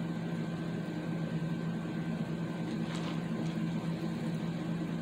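A steady low mechanical hum, with two faint clicks about three seconds in.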